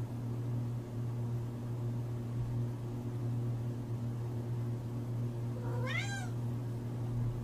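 A tabby cat meows once, about six seconds in: a short meow that rises and then falls. A steady low hum runs underneath.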